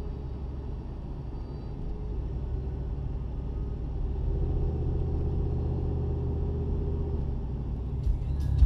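Dodge Durango's engine running while driving, heard inside the cabin as a low, steady drone that grows slightly louder about four seconds in. Music starts near the end.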